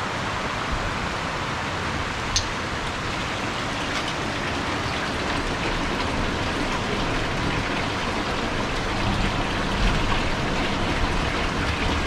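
Steady rush of running water from a mountain spring outlet pouring into its channel, with one sharp click about two and a half seconds in.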